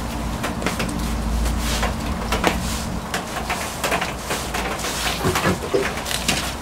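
Small knocks, clicks and rustles of objects being handled and moved on a cluttered windowsill, over a low steady hum.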